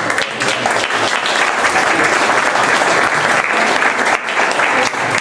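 Audience applauding: a dense, steady round of clapping from a seated crowd.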